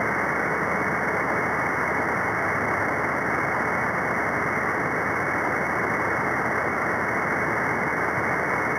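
Steady static hiss from an SDRplay RSP1B receiver tuned to the CB freeband above channel 40, with no station transmitting. The hiss is muffled, with no high end, and holds level throughout.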